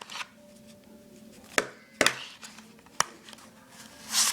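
Sharp clicks and taps of plastic and cardboard CD packaging being opened by hand, with a short, louder scraping rustle near the end as the case comes free.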